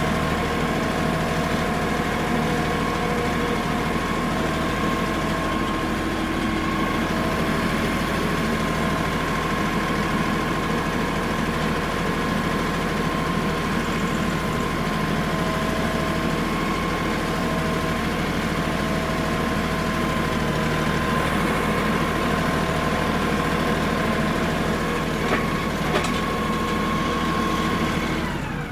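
Tractor engine running steadily at a constant speed, with a couple of short knocks near the end.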